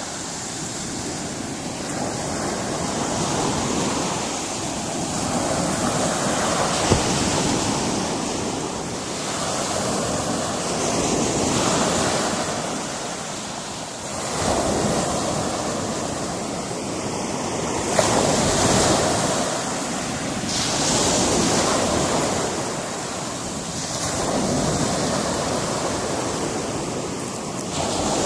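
Sea surf breaking on a rocky coast: a steady wash of waves that swells and falls back every few seconds.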